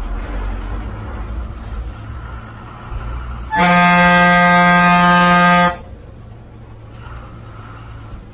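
Bus horn sounding one long, steady blast of about two seconds partway through, over the low running of the bus's engine.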